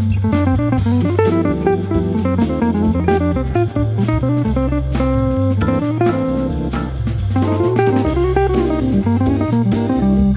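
Jazz organ trio playing: an archtop electric guitar plays quick single-note lines over walking low bass notes from the organ and a drum kit with cymbals.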